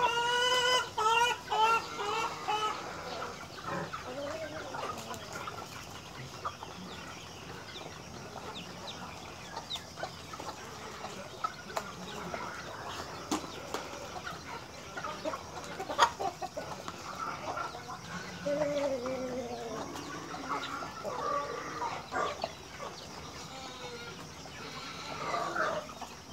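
A flock of chickens clucking and calling, with a loud run of repeated calls in the first three seconds and more calls later on. A few sharp clicks stand out midway.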